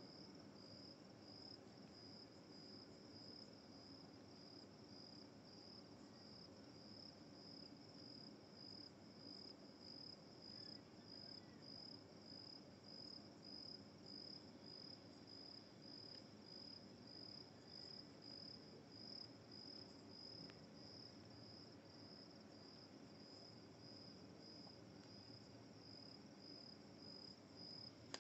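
Faint cricket chirping steadily in the background, an even high-pitched pulse about twice a second.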